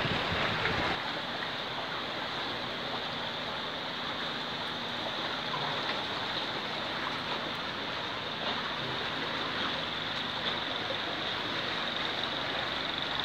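Steady rush of a fast-flowing river, with a faint low hum underneath.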